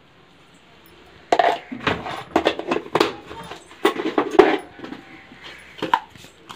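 Metal kitchen utensils clinking and clattering: a quick run of sharp knocks starting about a second in and dying away past the middle, with a couple more near the end.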